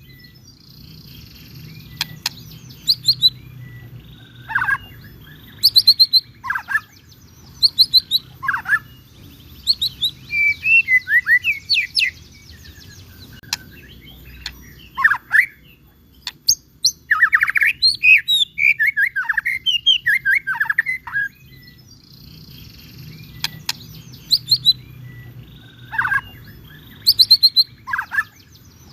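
White-rumped shama singing: phrases of rapid, sweeping whistled notes and short trills, coming in bursts with pauses of a second or two between them, over a faint steady low hum.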